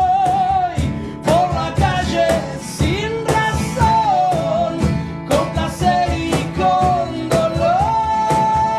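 Live acoustic rock song: a male voice sings long, sliding notes over strummed acoustic guitars and an acoustic bass guitar, with a cajón keeping a steady beat.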